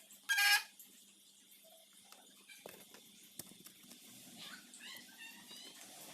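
Short high-pitched animal calls: one loud call near the start, then a run of faint chirps in the second half.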